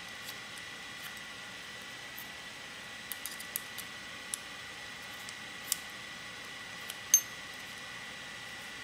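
Small metal parts of a PMI Piranha R6 paintball marker clicking and clinking as it is put back together by hand: a few light clicks in a quick cluster about three seconds in, scattered single ticks, and a louder metallic clink with a brief ring about seven seconds in.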